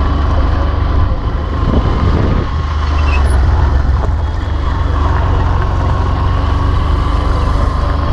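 Motorcycle running along a dirt track, with a steady low rumble of wind on the camera microphone over the engine.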